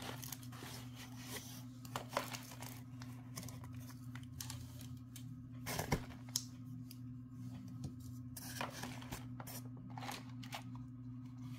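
A package being handled and opened: scattered rustles, crinkles and a few sharp taps. A steady low hum runs under it.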